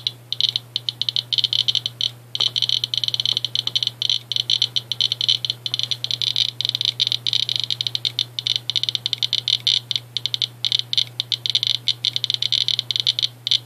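Geiger counters clicking rapidly and irregularly, many clicks a second, over a steady high-pitched whine and a low hum. They are picking up radiation from uranium-doped Vaseline glass, reading over a thousand counts per minute.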